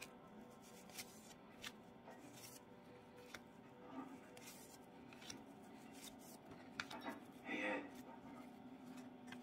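Paper baseball cards being flipped through by hand, one card slid off the stack onto the back about every second, each with a soft flick of card stock against card stock.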